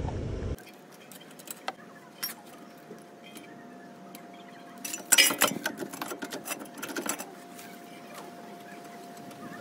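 Metal tools and brake parts clinking, with scattered clicks and then a denser rattle about five seconds in, lasting a couple of seconds, as a rear brake caliper is worked on for a handbrake adjustment. A thin steady whine runs underneath.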